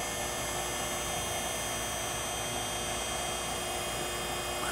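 Okamoto ACC-16.32DX surface grinder's hydraulic pump running with the grinding spindle off: a steady hum with several fixed tones.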